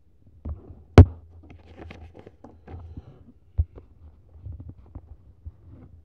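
A paper CD booklet being handled and its pages turned: soft rustles and small ticks of paper, with a sharp click about a second in and another a little past the middle.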